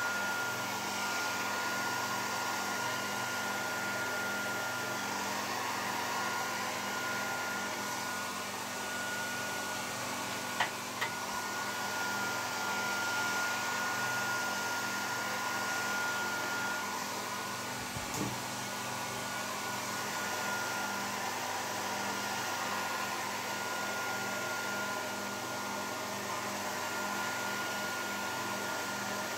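Handheld hair dryer running steadily, its airflow rushing with a thin steady whine, blowing through a kitchen colander used as a curl diffuser. Two faint clicks about a third of the way in.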